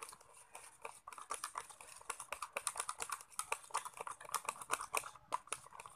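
Homemade glue slime being worked and mixed, giving a dense run of irregular sticky clicks and crackling pops, several a second.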